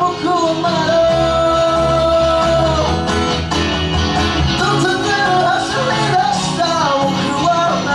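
Live band music: a male lead vocal over strummed acoustic guitar, electric guitar and electric bass. The melody holds one long note for about two seconds, starting about a second in.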